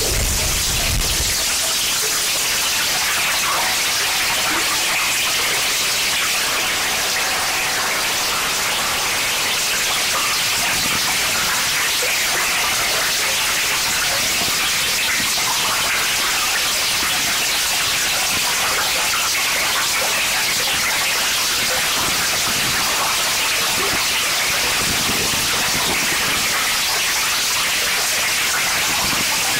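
Harsh noise wall: a loud, steady, dense roar of electronic static, strongest in the upper range, with no pitch or rhythm. A low rumble under it cuts out about a second and a half in.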